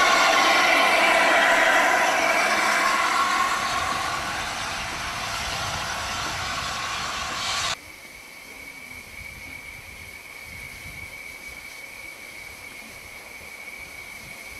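Steam locomotive hissing: loud steam noise easing off over several seconds. About halfway through it drops suddenly to a quieter, steady hiss from the standing LNER A4 Pacific, with one thin, high, steady note.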